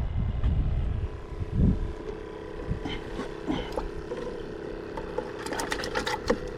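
Wind rumbling on the microphone at first, then a steady motor hum, like a boat engine, from a little past the middle, with a quick run of sharp clicks near the end.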